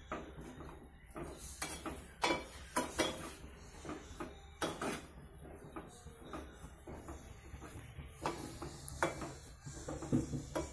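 Wooden spatula and a small spoon knocking and scraping against a metal cooking pot as salt is stirred into cucumber pieces simmering in water, with irregular clinks and knocks scattered throughout.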